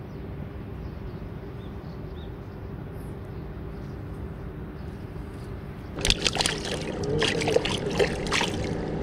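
Hands splashing and rinsing in shallow river water at the bank, starting about six seconds in, with sloshing and dribbling. Under it, and alone before it, a steady low drone.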